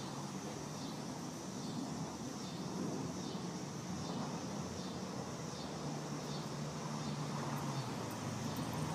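Steady low rumble of distant traffic under general outdoor background noise.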